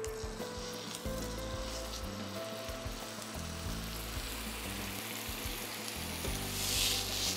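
Thick beef striploin steak searing in hot rapeseed oil in a frying pan: a steady sizzle that flares up loudly near the end as a garlic clove goes into the oil.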